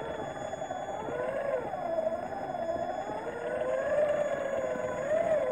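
Traxxas Summit RC truck's electric motor and drivetrain whining steadily, the pitch rising and falling as the throttle and load change while it crawls through snow.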